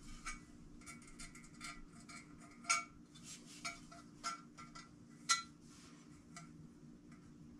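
Light metallic clinks and taps as a painted sheet-metal engine fan housing is handled and pop rivets are fitted, each tap ringing briefly in the housing; two sharper clinks stand out, one a little before the middle and one about two-thirds through. A steady low hum runs underneath.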